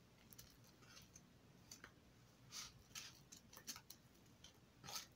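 Faint, irregular clicks and scrapes of a metal spoon against a plastic mixing bowl, stirring flour and evaporated milk together for pancake batter.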